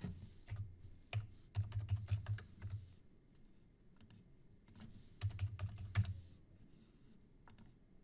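Typing on a computer keyboard: two short runs of keystrokes, then a few single clicks near the end.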